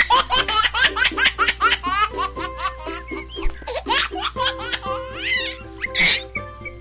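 A fast, high-pitched run of giggling laughter over background music.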